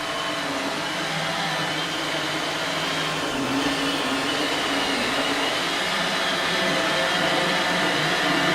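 iRobot Roomba 880 robot vacuum running as it cleans along a wall: a steady machine hum with a few held tones, growing slightly louder.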